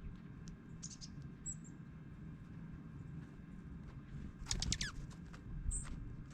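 Dark-eyed juncos giving short, high, sharp chip calls, with a loud cluster of quick downward-sweeping chips about two-thirds of the way through. Faint scattered ticks and pattering sit over a steady low rumble.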